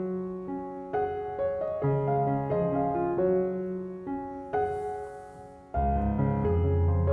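Soft, slow piano music: single notes that sound and fade. About two-thirds of the way through, a deeper, fuller chord comes in.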